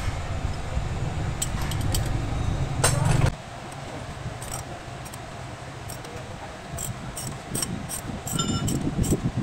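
Metal hand tools clinking and scraping as they are picked up, set down and knocked against the steering knuckle: scattered sharp clinks, with a longer ringing scrape about three seconds in. A low steady rumble runs underneath and stops abruptly just after that.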